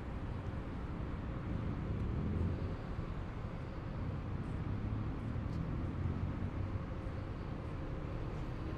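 Road traffic on a city avenue: a steady, low rumble of passing vehicles.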